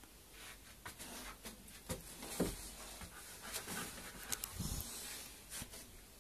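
Two dogs, one a Dogue de Bordeaux, wrestling in play: scuffling, scattered clicks of claws and mouths, and a few soft thumps, the loudest about two and a half seconds in.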